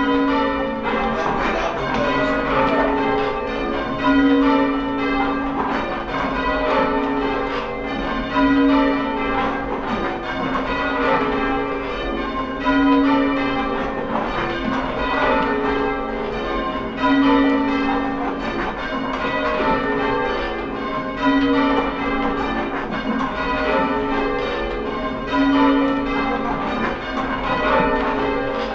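Church bells rung one after another in a steady, even sequence of strikes with long ringing overtones. The lowest, loudest bell comes round about every four seconds.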